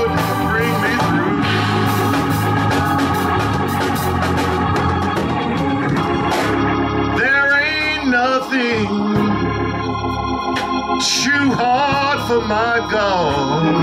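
Organ playing sustained chords while a man sings a wavering melody over it through a microphone. Sharp percussive hits sound along with it through the first half.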